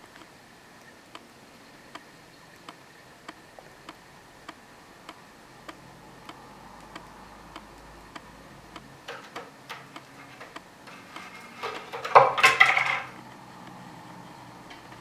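A cat scrambling on a sisal-wrapped cat tree: a short loud burst of scratching and rattling about twelve seconds in, after a run of faint ticks about every half second and a few sharper clicks.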